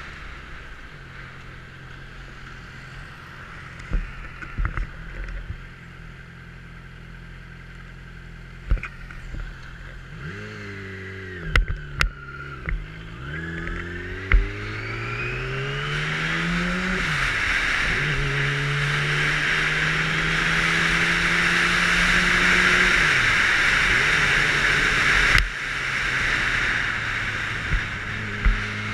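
600 cc motorcycle engine, heard from a helmet camera: it runs steadily at low speed, then its pitch falls and climbs as the rider goes through the gears and accelerates, holds a higher steady note, and drops again near the end. Wind rush over the helmet grows with speed, and a few sharp clicks come in the first half.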